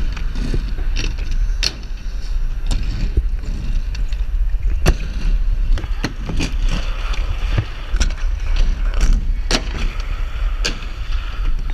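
Inline skate wheels rolling on concrete ramps, a steady low rumble mixed with wind on the microphone, with several sharp clacks of skates striking the coping and landing.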